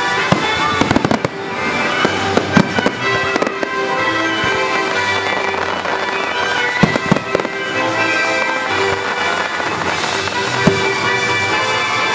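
Fireworks bursting and crackling in quick irregular bangs, heard over loud orchestral-style music played for the show.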